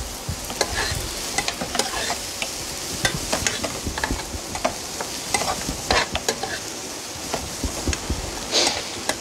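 Leeks sizzling in butter in a non-stick frying pan, stirred round with a spoon in irregular scrapes and clicks against the pan.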